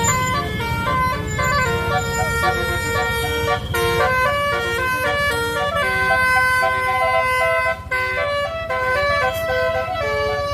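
A bus's telolet horn, a set of multi-tone air horns, playing a quick melody of stepped notes with several tones sounding together, over the low rumble of the bus.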